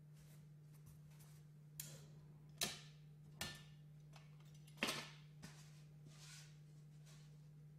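Handling noises from building work: a few sharp clicks and knocks, loudest about two and a half and five seconds in, as a caulking gun and foam building boards are handled, over a faint steady hum.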